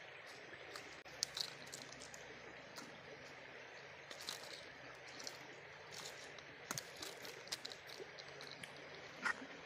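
Steady rush of flowing stream water, with scattered sharp clicks and rustles as a woven bamboo fish trap is handled over dry leaves.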